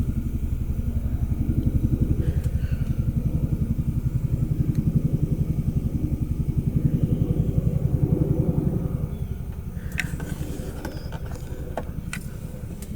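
An engine running steadily at idle, a low, fast, even pulsing that eases a little near the end, with a few sharp clicks near the end.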